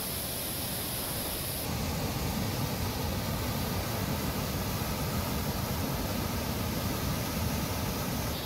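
Floodwater cascading down a spillway: a steady rushing noise. It turns deeper and fuller about two seconds in.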